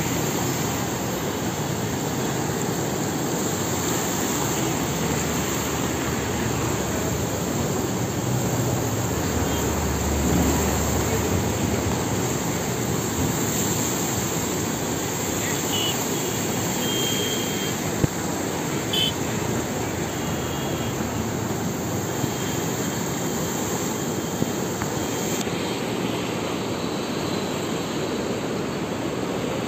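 Steady rushing of a swollen river in flood, fast brown water churning and swirling. A sharp click comes about two-thirds through, and a few brief faint high tones sound in the middle.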